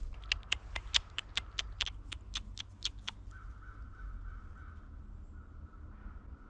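Squirrel alarm call from the trees: a run of sharp chips, about five a second, for the first three seconds, then a fainter rapid trill.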